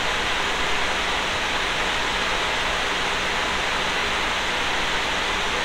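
Mining-rig cooling fans running at speed: a steady, even rush of air with a faint low hum underneath.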